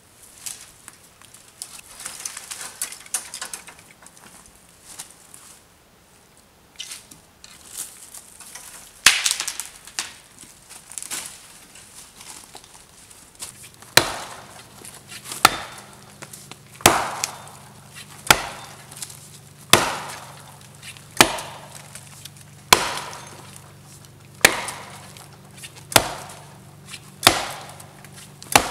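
Dead branches cracking and snapping as they are broken by hand, then, from about halfway, a hatchet chopping into a small tree trunk: a sharp wood-on-steel blow roughly every second and a half.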